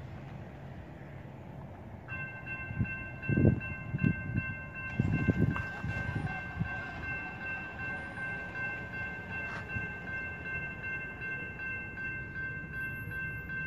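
Railroad grade-crossing warning bell starts about two seconds in and keeps up an evenly pulsing electronic ring as the crossing is activated and the gates come down. A few low thumps come in the first seconds of the ringing.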